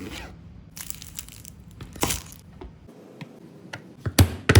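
Crinkling and rustling handling noise with scattered light clicks, then a few heavy thumps about a second before the end.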